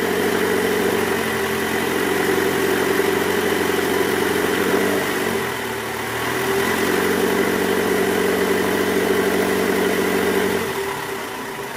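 Toyota 2AZ-FE four-cylinder engine held at about 1200 rpm in reverse, running with a rough growl ("ngorok") from the serpentine-belt tensioner, whose spring has gone weak. The engine note dips briefly about halfway through and drops lower near the end.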